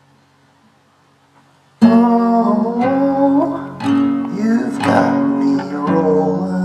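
Faint steady hum, then guitar strumming starts suddenly about two seconds in: the opening chords of a song.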